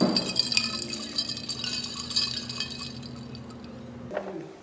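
Ice cubes clinking and rattling against the sides of a cup of iced coffee as it is stirred with a straw. It is busiest in the first two seconds or so, then dies away.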